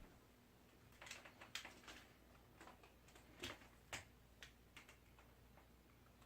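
Near silence, broken by a dozen or so faint, sharp clicks and taps clustered from about a second in until about five seconds in.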